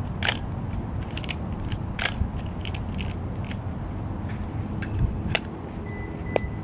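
Irregular mechanical clicks and snaps from a Pentax LX 35 mm film camera as its controls are worked by hand, about a dozen in all at uneven spacing, over a steady low background rumble.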